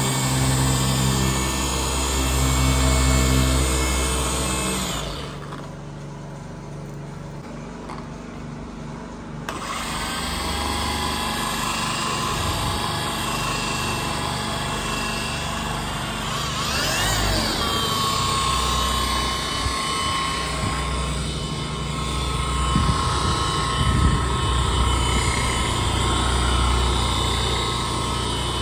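Milwaukee M18 cordless brushless dual-action polisher running with a cutting pad on car paint. Its motor hum drops off and turns quieter for a few seconds about five seconds in, then picks up again.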